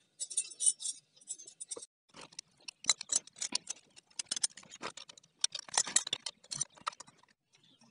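Rapid, irregular light metallic clicking and ticking of hand tools and screws while a cable guide is fastened onto a submersible pump.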